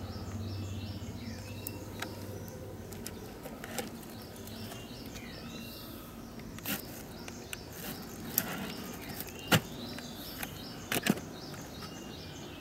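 Small birds chirping repeatedly in the background over a steady outdoor hum, with a few sharp clicks and knocks in the second half.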